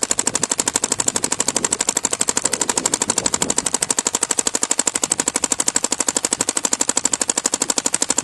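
Bob Long VCOM spool-valve paintball marker firing a long, unbroken string of rapid, evenly spaced shots in PSP ramping mode; the string sounds very smooth.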